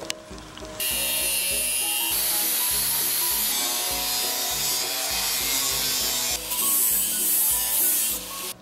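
Angle grinder with a cut-off disc cutting through thin steel sheet, starting about a second in and running hard until it stops just before the end; its hiss turns brighter near the end.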